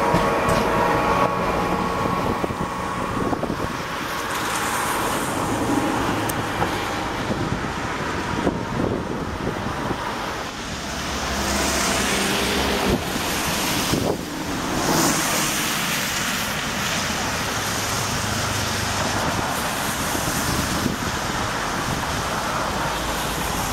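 Street traffic on a wet road, with cars passing and a steady tyre hiss that grows louder around the middle. A passing K1M tram's whine fades out in the first second.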